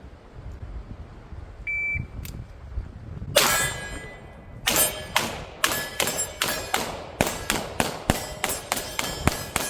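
A shot timer beeps once, and about a second and a half later a pistol fires. After a short pause it fires a fast string of a dozen or more shots, roughly three a second, each with a ringing tail.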